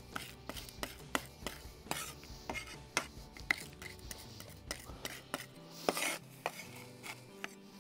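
A wide-bladed knife chopping garlic with salt on a wooden chopping board: irregular sharp knocks of the blade on the wood, mixed with the blade scraping across the board.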